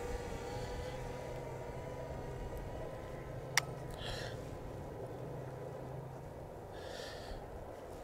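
DJI Mini 2 quadcopter's propellers whining as it flies backward and climbs away, the steady tone fading as the drone recedes, over a low rumble of wind. A single sharp click about three and a half seconds in.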